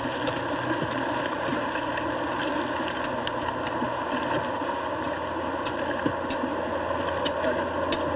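An engine running steadily, with a few faint sharp clicks over it.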